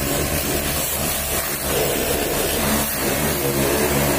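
Pressure washer running: a steady motor-and-pump hum under the loud hiss of the high-pressure water jet hitting the car's bodywork and wheel.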